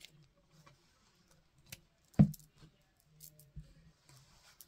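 Scissors and fabric being handled on a tabletop: a few light clicks and one sharper knock about two seconds in as the scissors are moved and set down.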